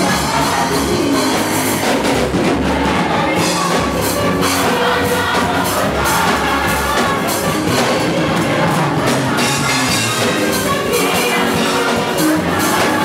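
Upbeat music with a group of voices singing over steady percussion, played loud.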